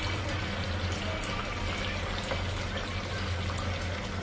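Batter-coated chicken pieces frying in hot oil in a pan: a steady sizzle dotted with small crackles, over a steady low hum.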